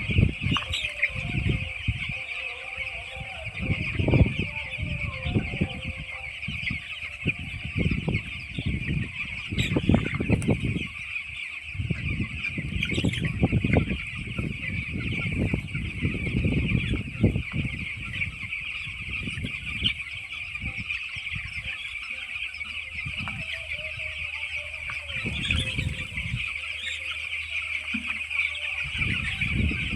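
A large flock of 11-day-old chicks peeping continuously, a dense high chorus with no break, over irregular low thuds and rumbles.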